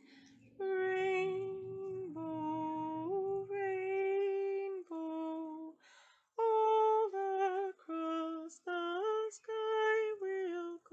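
A woman singing unaccompanied: a slow phrase of long held notes, a short pause about five seconds in, then a phrase of shorter, quicker notes.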